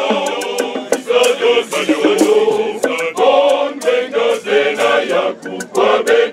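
Men's choir singing together, many voices in unison and harmony.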